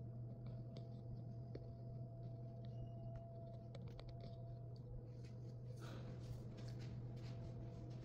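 Steady low room hum with scattered light clicks and rustles, which grow busier from about six seconds in.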